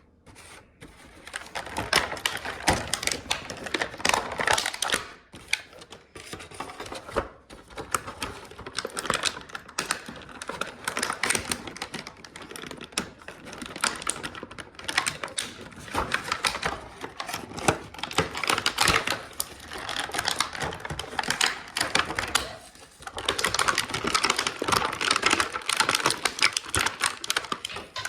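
Toy packaging being handled and pulled open: dense, rapid clicking and crackling of plastic and cardboard.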